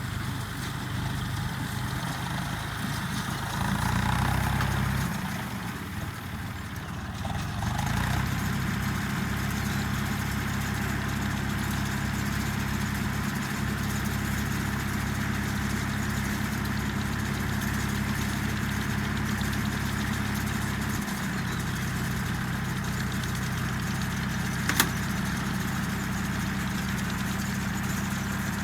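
An engine running steadily at idle, its tone shifting slightly a few times, with one sharp click near the end.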